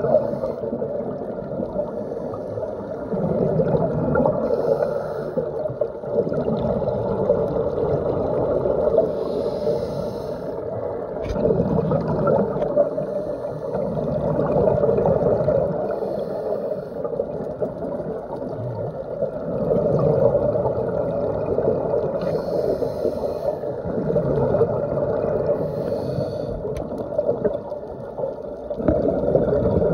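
Underwater sound heard through a phone's dive case: a muffled rushing and gurgling of scuba regulator breathing and exhaled bubbles, swelling about every five seconds.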